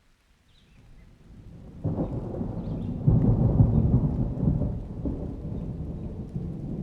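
A thunderclap over rain: a low rumble builds, breaks into a loud peal about two seconds in, is loudest a second later, then rolls and slowly fades.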